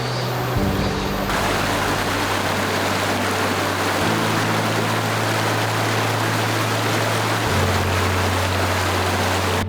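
Mountain stream rushing over rocks, a loud steady rush of water, with background music's low sustained notes underneath that shift pitch a few times.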